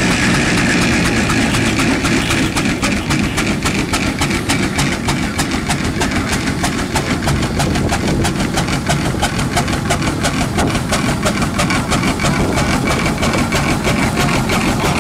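Aveling & Porter steam roller on the move, its exhaust chuffing in a quick, even beat that grows more distinct a few seconds in.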